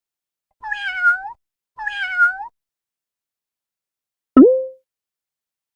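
Domestic cat meowing twice, each meow about three-quarters of a second long, dipping in pitch and rising at the end. Near the end comes a single sudden, louder pop with a brief tone after it.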